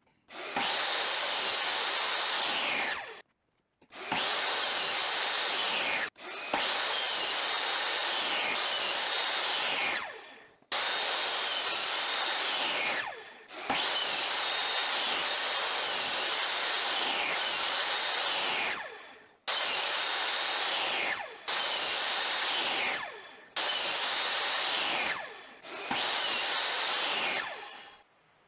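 Electric power tool working wood in about nine short runs. Each run starts sharply, carries a high whine and winds down as the trigger is released.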